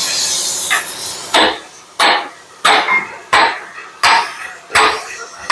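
Hammer blows driving a king pin down through the steering knuckle into a Ford Cargo 1721 front axle beam. There are about seven sharp metal-on-metal strikes, one every 0.7 s or so, starting a little over a second in.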